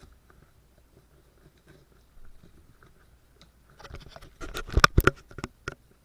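A cardboard package being cut open with scissors: faint rustling, then a burst of sharp crackles and snaps of cardboard and tape about four to five seconds in.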